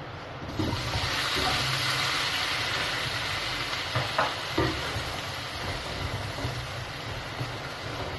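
Cabbage tipped into hot oil in a wok, starting to sizzle loudly about half a second in and frying on as it is stirred. A couple of sharp knocks of the spatula against the wok come near the middle, over a steady low hum.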